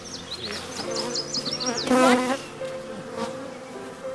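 Honeybees buzzing around an open hive, a steady drone that wavers in pitch as bees fly about, loudest about two seconds in. A small bird chirps quick high notes over it in the first two seconds.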